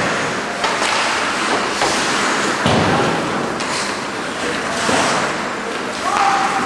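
Ice hockey game heard from the stands: skates scraping the ice and several sharp knocks of sticks and puck, with people's voices in the rink.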